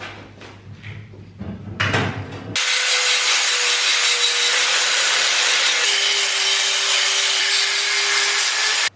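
Angle grinder on steel square tubing, starting about two and a half seconds in after some quieter scraping and knocking. It runs steadily, its motor note drops slightly under load about six seconds in, and it cuts off abruptly near the end.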